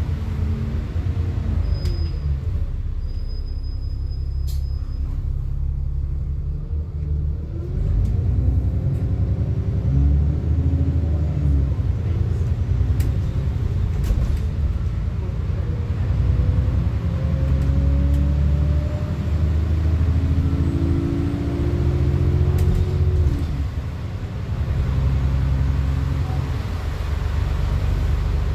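Alexander Dennis Enviro400 double-decker bus heard from inside on the upper deck, its diesel engine being worked hard: a heavy rumble that eases off early on, then pulls strongly again, with a whine that rises and falls as the bus accelerates and changes gear, and a brief let-up near the end.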